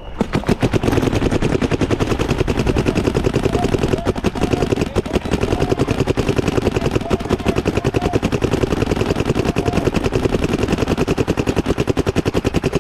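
Planet Eclipse Gtek 180R electronic paintball marker firing a rapid, unbroken stream of shots.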